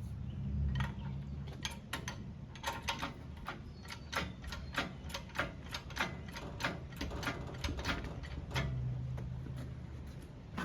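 A run of sharp metallic clicks, about two or three a second and not quite evenly spaced, over a low steady hum, as tools and hoist gear work an engine into place.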